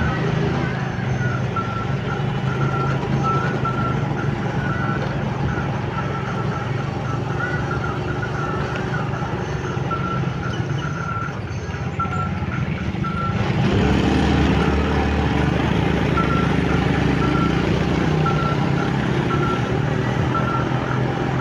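Motorcycle engine and road noise while riding, with a quick repeating high beep over it, which breaks off briefly near the middle. About 13 seconds in, the engine and road noise grow louder and deeper as the bike speeds up.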